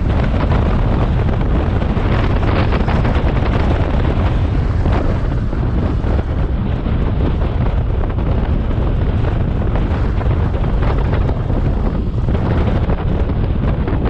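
Wind buffeting the microphone on a moving BMW R 1250 GS motorcycle: a loud, steady low rumble.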